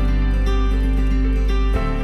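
Instrumental background music, with the low bass note changing near the end.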